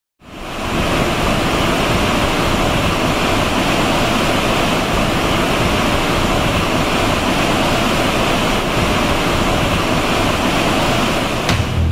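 Steady rushing of churning water from a ship's wake, fading in over the first second. A sharp hit near the end as music starts.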